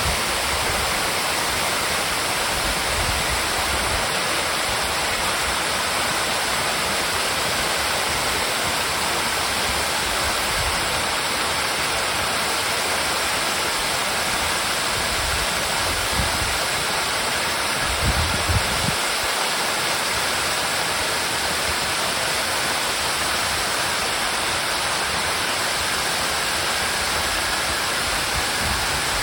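Waterfall pouring: a steady, full rush of falling water. There are a couple of brief low thumps about eighteen seconds in.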